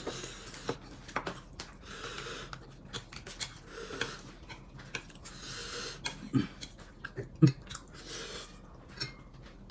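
Quiet eating at a table: chopsticks picking at a plate of fish with small clicks, chewing and breathing, and two soft knocks about six and seven and a half seconds in.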